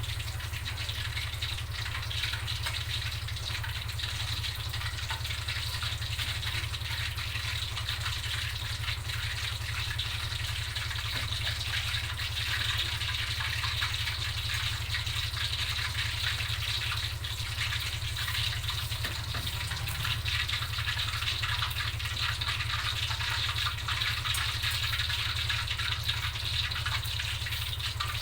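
Fish frying in hot oil, a steady dense sizzle full of fine crackles, over a constant low hum.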